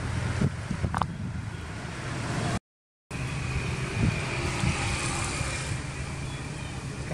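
Road traffic going by, a steady low rumble. The sound cuts out completely for about half a second around two and a half seconds in.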